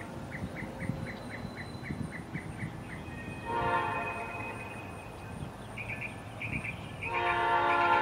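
Horn of an approaching CN freight locomotive, heard at a distance: one blast about three and a half seconds in that fades out over a second or so, and a second, louder blast starting near the end.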